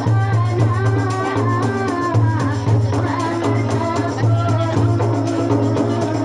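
A woman singing into a handheld microphone over amplified backing music, with a steady beat and percussion.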